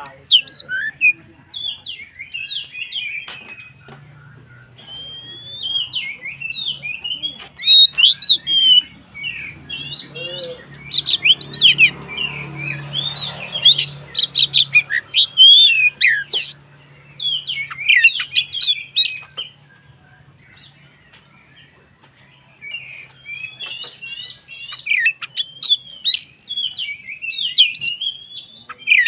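Oriental magpie-robin (kacer) in vigorous full song: fast, varied phrases of sweet whistles, chirps and sharp notes. It pauses for a few seconds about two-thirds of the way in, then resumes.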